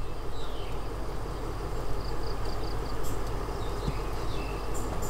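Birds chirping, with a quick run of short notes about two seconds in, over the steady low rumble of a stationary train's idling diesel.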